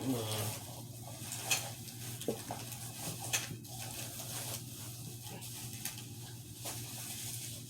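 Faint scattered clicks, taps and rustles of small items and packaging being handled during an unboxing, over a steady low hum.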